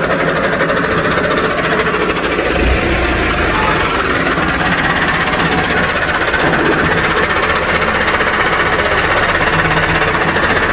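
Diesel tractor engine idling with a steady, rapid clatter. A dull thump comes about two and a half seconds in.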